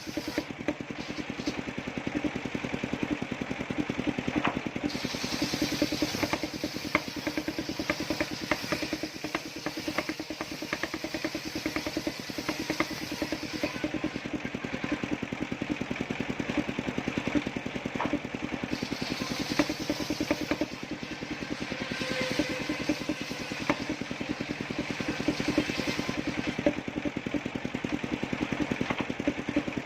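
Engine of a homemade circular-saw sawmill running steadily with a fast, even firing beat. A higher hiss above it grows and fades several times.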